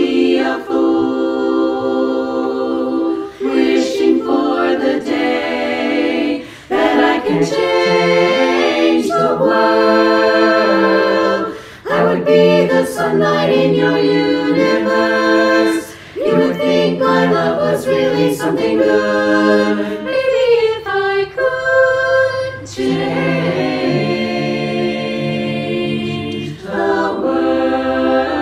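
Women's chorus singing a cappella in close harmony: held chords phrase after phrase, with short breaths between phrases.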